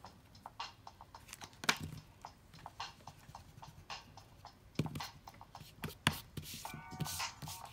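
Irregular light taps and clicks, a few louder knocks among them, and a short pitched sound near the end.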